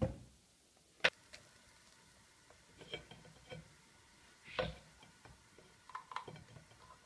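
Plastic potato ricer being worked: a sharp click about a second in, then a few scattered soft clicks and knocks as hot boiled potato is squeezed through it.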